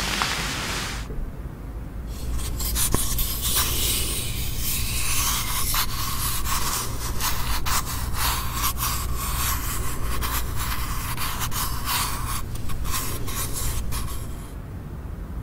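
A scratchy, crackling hiss full of sharp clicks over a low steady hum. The crackle comes in about two seconds in and cuts off suddenly near the end.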